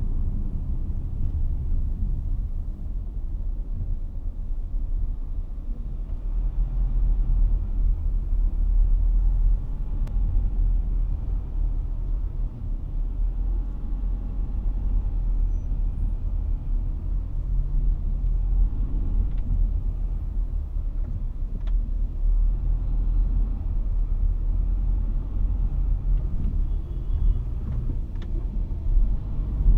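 Car driving in traffic: a steady low rumble of engine and road noise.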